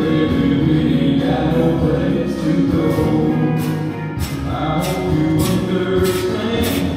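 Music with singing voices, choir-like, and a steady backing.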